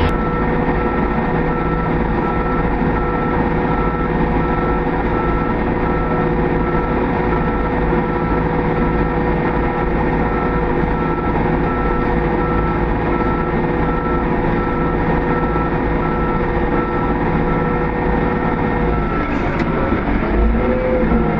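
Heavy farm tractor engine running steadily under a repeating short high beep. About nineteen seconds in, the beeping stops and the engine note shifts.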